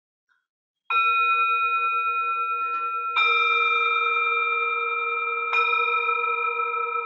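A resonant metal bell struck three times with a mallet at the same pitch, about two seconds apart. Each stroke rings on in a long, slowly fading sustain with clear overtones above the main note.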